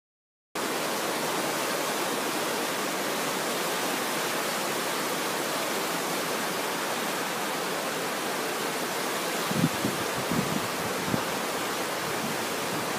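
River in flood spate: fast brown floodwater rushing in a steady, even noise that starts abruptly about half a second in. A few low thumps come near the end.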